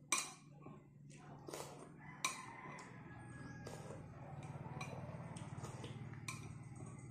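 Metal spoon clinking and scraping against plates and dishes while eating, with sharp clicks in the first couple of seconds. A low steady hum runs through the second half.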